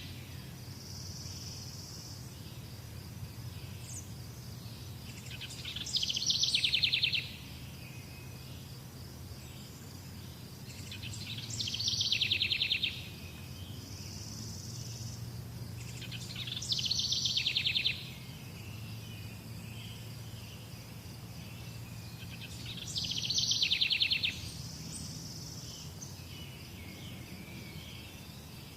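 A bird repeating a rapid trilled phrase four times, about every five to six seconds. Each phrase lasts about a second and a half, grows louder and stops abruptly. A steady high insect chirring and a low hum run underneath.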